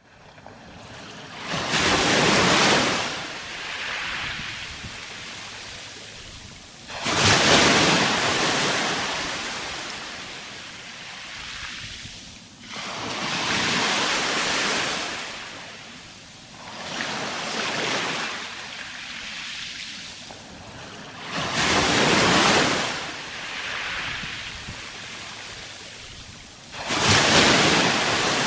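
Sea waves breaking on a shore: six surges of surf, roughly every five seconds, each rising quickly to a rush and then washing away.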